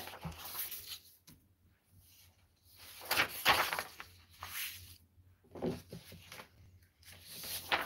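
Sheets of paper rustling and sliding as a stack is handled and laid down on a cutting mat, in several short bursts with the loudest about three seconds in.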